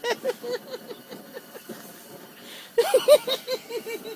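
A child's voice in quick, repeated short bursts, about four a second, in two runs with a pause in the middle, the sound of a boy who is upset or laughing hard.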